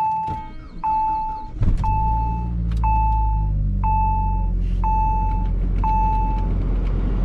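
Saab cold start: a warning chime dings about once a second inside the car while the engine cranks briefly, catches about a second and a half in, and settles into a steady idle. The chime stops near the end. The engine starts without trouble.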